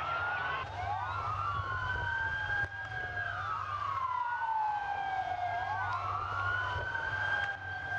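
Two sirens wailing at once, each pitch rising and falling slowly and out of step with the other, over a steady low hum.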